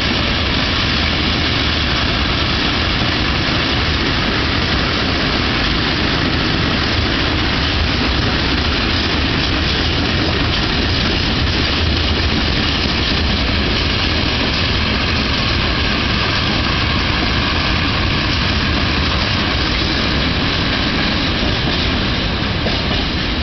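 Freight train of open goods wagons rolling past, a loud steady rumble of wheels on rail that eases slightly as the last wagons go by near the end.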